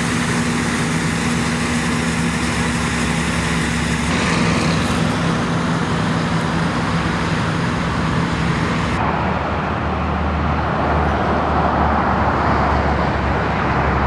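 Heavy corn-harvesting machinery running steadily: a diesel engine hum under a continuous mechanical rush, changing abruptly twice as the shot changes.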